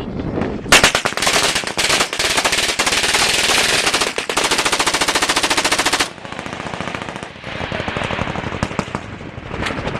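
Machine gun firing long fully automatic bursts, a rapid even stream of shots lasting about five seconds with a short break around four seconds in, then quieter scattered shots.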